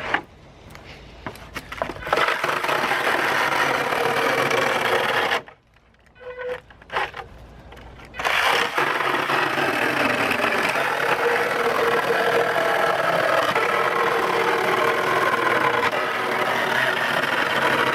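Worx 20-volt cordless mini chainsaw cutting through pallet wood: the electric motor and chain run for about three seconds, stop with a few small knocks in between, then cut steadily again for the last ten seconds.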